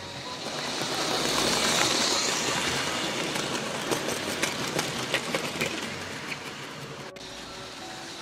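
00 gauge model train running past close by: a rushing sound swells to its loudest about two seconds in, then comes a scatter of sharp clicks from the wheels and track before it fades.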